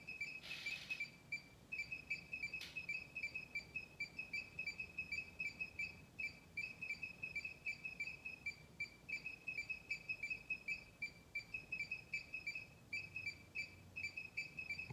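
High-pitched electronic beeping in rapid runs of short beeps, repeating without letup, with a brief hiss and a single click early on.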